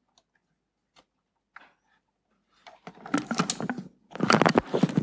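A few faint clicks, then, about three seconds in, loud rustling and scraping right at the microphone in two long bursts: handling noise from equipment being moved around at the lectern.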